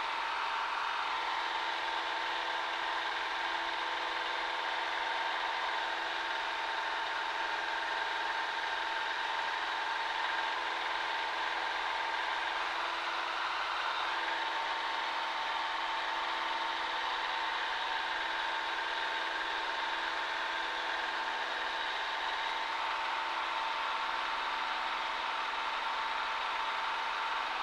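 Cessna 140A's single piston engine and propeller droning steadily in the cockpit, an even hum with a strong tone near 1 kHz and little bass.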